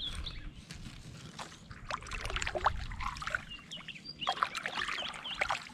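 Kayak paddle strokes through the water, with water splashing and dripping off the blade as the kayak is turned.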